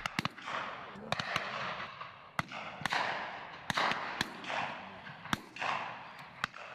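Shotguns firing at driven pheasants: about a dozen shots at irregular spacing from several guns, some close and sharp, some fainter and more distant. Each shot trails off in a short rolling echo.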